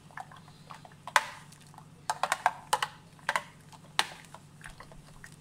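Metal spoon stirring juice in a plastic blender jug, knocking against the sides in a series of irregular sharp clicks, several in quick succession about two seconds in.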